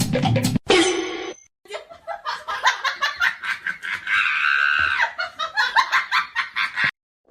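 Music stops under a second in. Then a person laughs in quick, repeated bursts for several seconds, rising into a longer high-pitched stretch near the middle.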